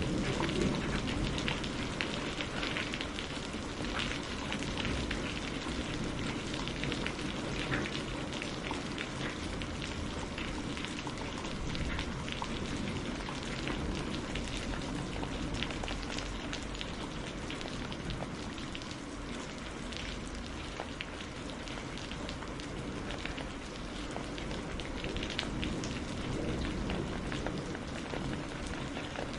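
Steady rain falling on a surface, a continuous hiss dotted with many individual drop ticks.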